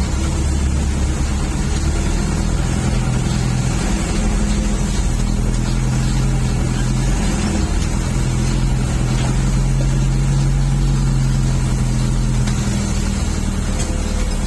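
Diesel engine of a Toyota FJ40 running steadily under load as the vehicle drives. The engine note shifts about seven or eight seconds in.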